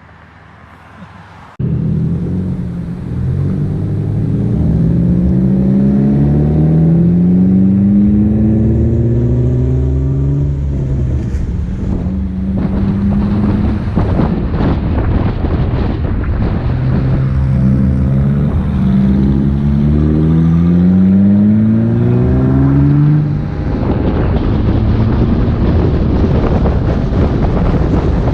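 Car engine accelerating hard, its pitch climbing in steps as it shifts up through the gears, in two runs of pulls; it cuts in suddenly just after the start, and a rushing wind and road noise builds up under it from about halfway.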